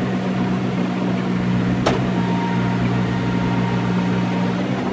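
John Deere 5083E tractor's diesel engine running at a steady pace, heard from inside the cab, with a single sharp click about two seconds in.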